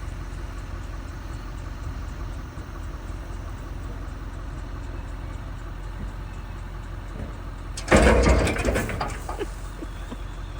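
A vehicle engine running steadily with a low rumble while hauling a load of hay rolls. About eight seconds in, a loud clattering rattle lasts about a second.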